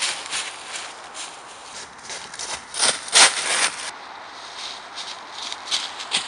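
Footsteps rustling and crunching through dry fallen leaves, in irregular steps, with a louder burst of crunching about three seconds in.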